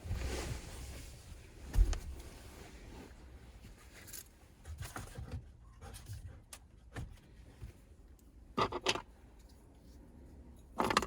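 Hand-handling noises in a truck cab: rustling at first, one sharp knock about two seconds in, then scattered light clicks and taps, with a short run of clicks near the end.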